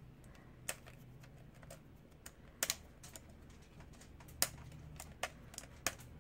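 Hard plastic parts of a Voltron Black Lion action figure clicking and knocking as it is handled and turned in the hands: about eight sharp, irregularly spaced clicks over a faint steady low hum.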